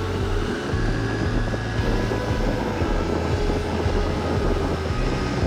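Steady low drone of a vehicle driving, engine and road noise, with the instrumental part of a song playing under it between sung lines.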